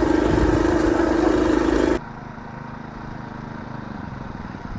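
Small motor vehicle's engine running, loud with a strong low hum and noise. About two seconds in it cuts abruptly to a quieter running engine with a rapid low pulsing.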